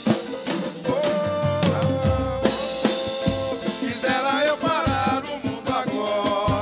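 Live samba music: a samba banjo strummed over a drum kit and percussion, with a male voice singing long, wavering notes from about four seconds in.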